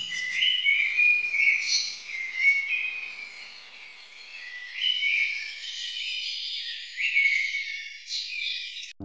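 Overlapping high-pitched whistled animal calls: short steady notes that step up and down in pitch, several voices at once. The calls cut off abruptly at the very end.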